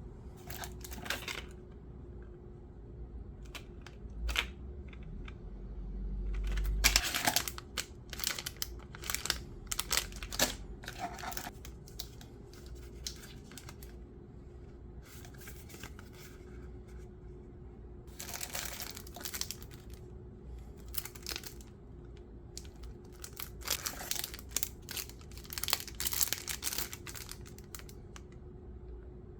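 Packaging being torn open and crinkled by hand, in irregular bouts of tearing and rustling with short pauses between, over a faint steady hum.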